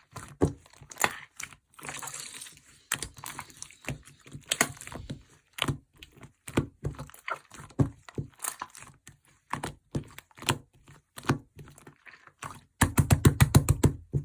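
Slime being squished and pressed by hand, giving irregular sharp clicks and crackles. Near the end comes a fast run of louder clicks, about eight a second.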